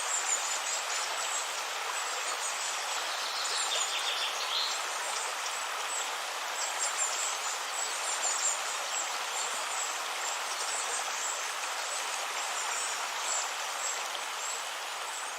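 River water flowing steadily, a continuous rushing and splashing.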